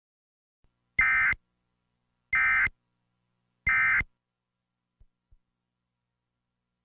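Emergency Alert System End of Message code: three identical short bursts of buzzing digital data tone, each about a third of a second long and about 1.3 s apart, signalling that the alert broadcast is over. Two faint clicks follow near the end.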